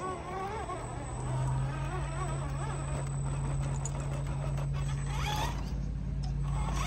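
Electric motor and geared drivetrain of an RC scale crawler truck whining while it crawls, its pitch wavering up and down with the throttle, over a steady low hum that strengthens about a second in.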